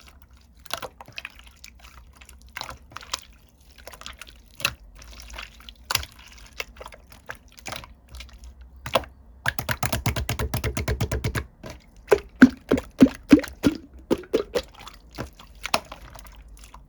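Clear konjac-jelly slime being pressed and worked by hand, giving scattered wet clicks and pops. About ten seconds in comes a fast run of crackling clicks for about two seconds, followed by a string of louder popping bubbles.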